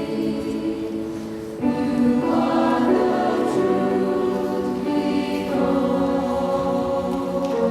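A choir singing a slow sacred piece in long held chords, moving to a new chord a few times.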